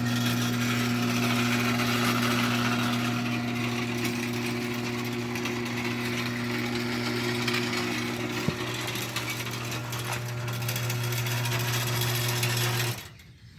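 Liftmaster 1155LM half-horsepower chain-drive garage door opener running through a full door travel: a steady motor hum with the chain running along the one-piece T-rail, really quite quiet for a chain drive. There is a single click about two-thirds of the way through, and the motor stops abruptly near the end.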